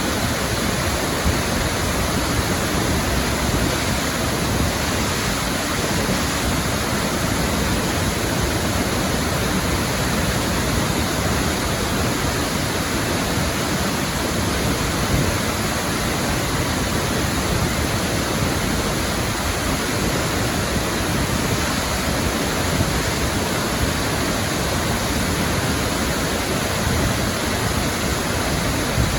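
Ithaca Falls, a large waterfall, pouring: a loud, steady, unbroken rush of falling water.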